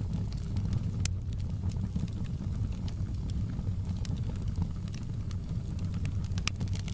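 Wood fire burning in a fireplace: a steady low rumble of the flames with scattered sharp crackles and pops, one louder pop about a second in.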